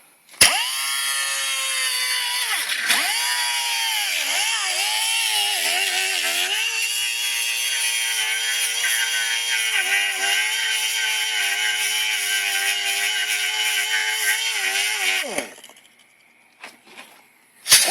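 Electric grinder starting up and grinding down the end of a steel guide bolt, its whine dipping in pitch each time it is pressed into the metal over a steady grinding hiss. It winds down near the end and starts again just before the end.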